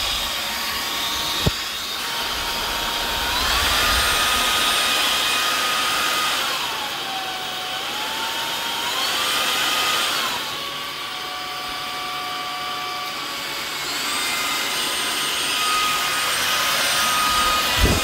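JASHEN V16 cordless stick vacuum running over a hard floor, sucking up dirt. Its steady motor whine rises and falls in pitch several times, and there is a single sharp click about a second and a half in.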